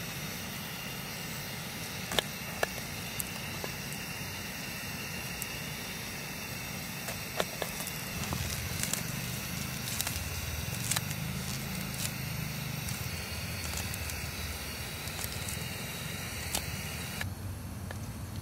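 Outdoor cooking sounds: a steady sizzling hiss with scattered sharp crackles and pops. The sound changes abruptly near the end as the higher hiss drops away.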